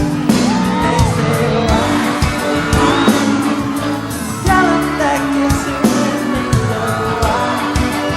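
A live pop concert performance: a male lead vocal sings a gliding melody over a band's sustained keyboard chords and steady drum beats, with the reverberation of a large arena.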